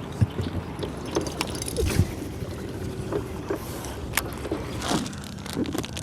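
Water lapping and knocking against a small fishing boat, with scattered sharp clicks and knocks and a faint steady low hum underneath.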